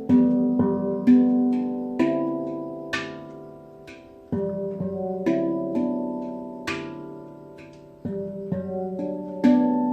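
Handpan (hang drum) played melodically: single struck notes, each ringing on with a bright overtone and slowly fading, some held over the next, with a short pause about four seconds in.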